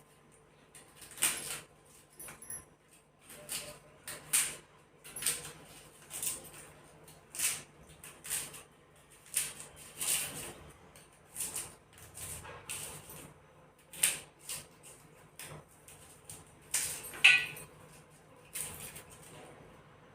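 Short, sharp kitchen-utensil strokes repeating about once a second, with a louder metallic clink near the end.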